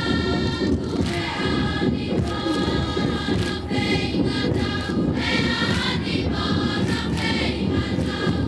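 A large chorus of schoolgirls singing a Tongan ma'ulu'ulu song together, with regular percussive beats.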